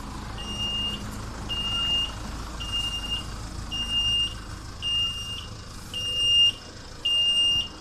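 A vehicle's reversing beeper sounding steadily: one short, high beep about every second, over a low traffic rumble. Two louder noises come near the end.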